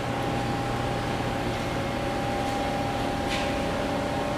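A steady mechanical hum with two faint, steady whining tones running through it, and a light tick about three seconds in.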